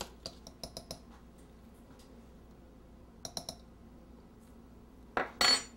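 Hand-held squeeze-handle flour sifter clicking as flour is sifted: a quick run of small clicks in the first second, another short cluster a little after three seconds, then a brief louder rustle about five seconds in.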